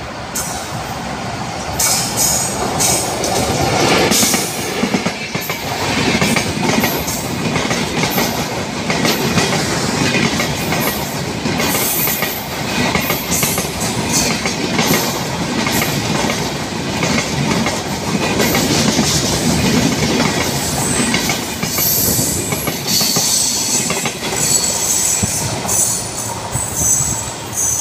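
Bangladesh Railway Intercity passenger train passing close by on the track: a loud, steady rumble of locomotive and coaches, with many short high-pitched squeals and clatters from the wheels on the rails. It grows louder about two seconds in and falls away just before the end.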